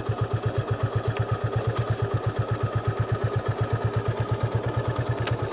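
Motorcycle engine idling steadily, an even low putter of about ten pulses a second.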